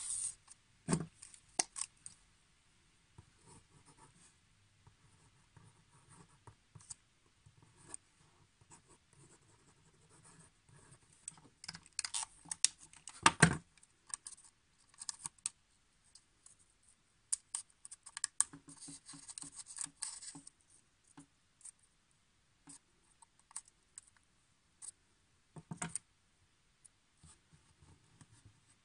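A small piece of paper handled and folded into a tiny envelope by hand: scattered light crinkles, creases and taps, loudest about halfway through.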